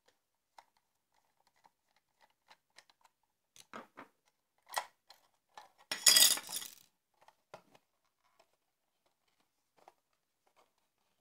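Scattered small clicks and clinks from handling the LED strobe's metal case and clear plastic front cover as it is taken apart, with a louder scraping clatter about six seconds in as the plastic cover is pulled off.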